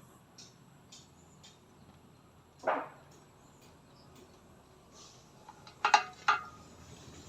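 Quiet handling noise: scattered light clicks and knocks as parts are handled. There is a louder short knock about three seconds in and a quick cluster of sharp clicks near the end.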